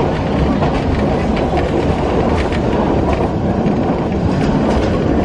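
Passenger train running at speed, heard from inside a carriage: a steady rumble of wheels on the rails with occasional faint clicks.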